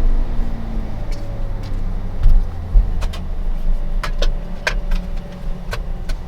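Mercedes-AMG GLC 43's twin-turbo V6 heard from inside the cabin: after a rev, a steady low drone that eases off slightly, with a few scattered light clicks.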